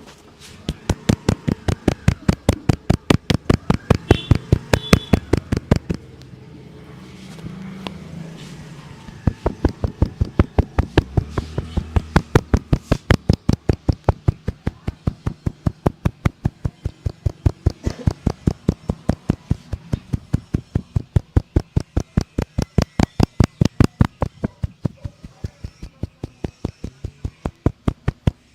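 Rapid percussive slaps of a barber's hands striking a head during a rough head massage, about five strikes a second, with a pause of about three seconds some six seconds in.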